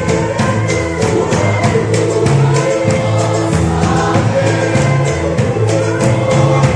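Music: a choir singing a gospel song over a steady beat.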